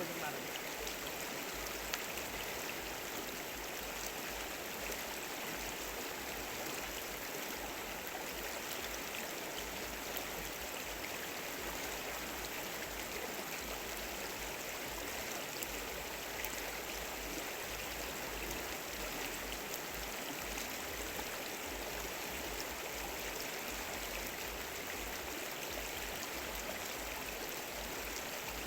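Stream water flowing steadily, an even rushing sound with no change throughout.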